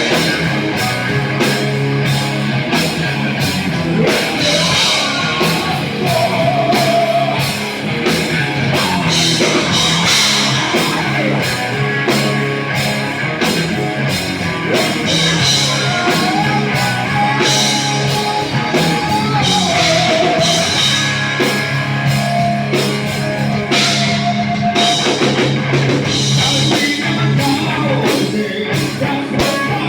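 Loud rock music with a drum kit and a steady beat, and a wavering melody line held over it.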